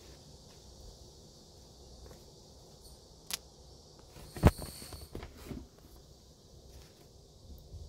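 Close handling noises as a hand moves things on a tissue: a sharp click about three seconds in, then a louder knock a second later, followed by a few soft taps and rustles.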